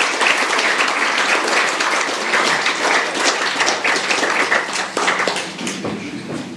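Audience applauding, many hands clapping at once, thinning out and dying away near the end.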